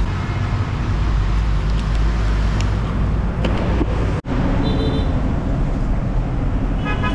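Busy city street traffic: a steady low rumble of engines passing. The sound drops out for an instant about four seconds in.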